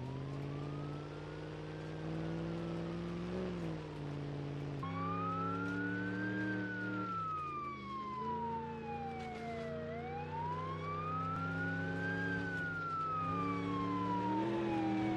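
A wailing siren, its pitch sweeping slowly up and down, faint at first and louder from about five seconds in, over a low steady drone.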